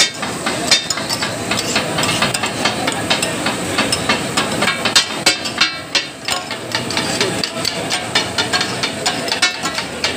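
Flat steel spatula blades chopping and scraping on a large flat iron tawa while katakat is cooked: fast, irregular metallic clacks over a steady sizzle.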